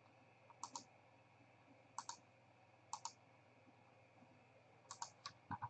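Faint computer mouse clicks, mostly in quick pairs about once every second or two, with a couple of duller knocks near the end.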